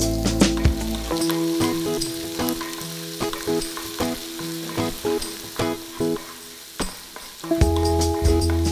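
Chopped garlic and ginger sizzling in hot oil in a nonstick pan, with a wooden spatula stirring and scraping through it. Background music plays underneath.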